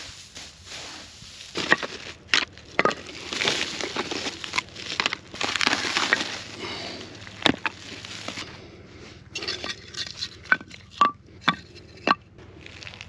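Hands handling firewood on a pebble beach: rustling and crunching as split kindling is pulled out of a woven sack, then sharp wooden knocks as the dry sticks are stacked against each other in a stone fire ring, about half a dozen clacks near the end.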